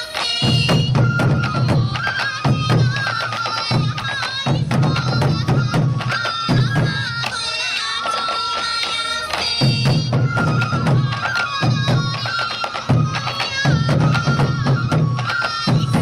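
Sansa odori music: taiko drums beaten in a steady repeating rhythm under yokobue bamboo flutes carrying a wavering high melody, with sharp clicking strokes throughout.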